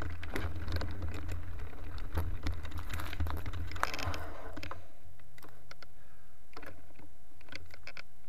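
Mountain bike rolling over a dirt forest trail: a low rumble from the tyres and frame, with many sharp clicks and rattles over roots and gravel. About four and a half seconds in, the rumble stops as the bike slows almost to a halt, and only scattered clicks remain.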